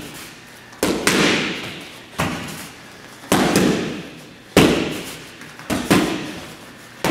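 Boxing gloves smacking focus mitts in punching combinations: sharp smacks about every second, some in quick pairs, each ringing out in the echo of a large hall.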